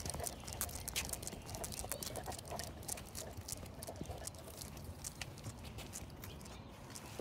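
A basset hound's claws clicking and paws tapping irregularly on a concrete sidewalk as it walks, over a low steady rumble.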